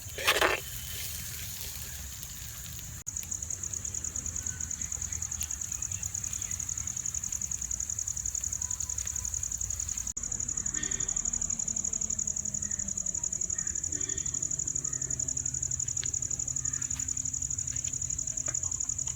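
Steady, high-pitched, rapidly pulsing insect trill, continuous from about three seconds in, over a low background rumble. Two brief sharp sounds come at the very start.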